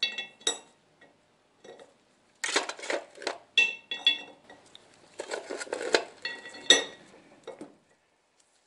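Steel wheel studs clinking as they are picked out of a metal pan and dropped into the stud holes of a brake rotor and hub: several bursts of metal clinks, some with a brief metallic ring.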